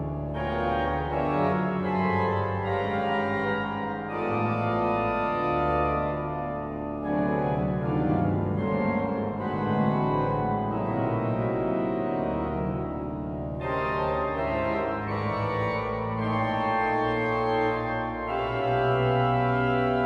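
Pipe organ playing dense sustained chords over a low pedal bass. The upper stops thin out about seven seconds in and brighter registration comes back near fourteen seconds.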